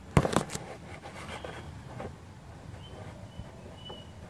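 Handling noise from the recording phone being moved: a quick cluster of knocks and rubs in the first half second. This is followed by faint background noise with a thin, high chirp that repeats a few times near the end.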